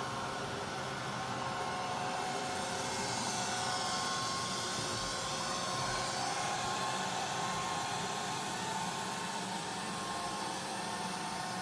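Neato robot vacuum running steadily: an even motor and suction whir with faint steady tones. A higher whine dips in pitch and rises again around the middle.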